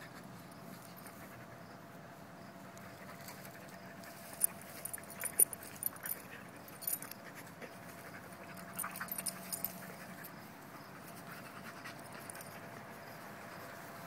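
Two dogs, a pit bull and a husky-type dog, play-fighting, with collar tags jingling in scattered sharp bursts, thickest about a third of the way in and again after the middle.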